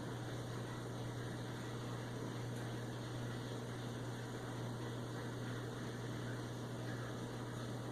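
Steady low hum under a constant hiss, even throughout with no distinct events.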